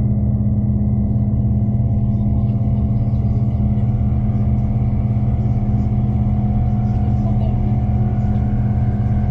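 Diesel train running at steady speed, heard from inside the carriage: a constant low drone with a faint higher tone above it.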